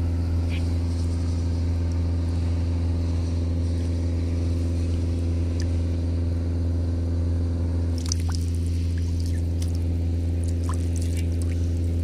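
An engine running steadily at constant speed, a low even drone, with a few light clicks and knocks in the last third.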